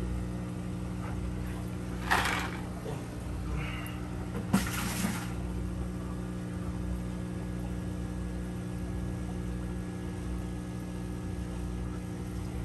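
Aquarium air pump humming steadily while the sponge filter bubbles. Water splashes briefly twice, about two and four and a half seconds in, as it is poured into the new filter to prime it so its impeller doesn't run dry.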